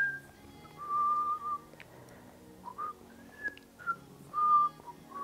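A series of short whistled notes, six or so, each a fraction of a second long and mostly held on one pitch, with a longer note about a second in and a higher one past the middle.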